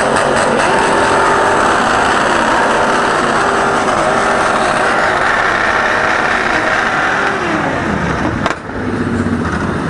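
A group of motorcycles revving their engines together, several engine notes rising and falling over one another, the revs dropping off about eight seconds in.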